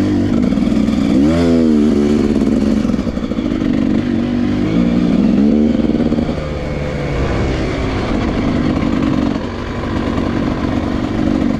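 Off-road vehicle engine running under load on a dirt trail. Its note dips and climbs again about a second and a half in and rises again around five seconds in as the throttle is worked, then runs steadily.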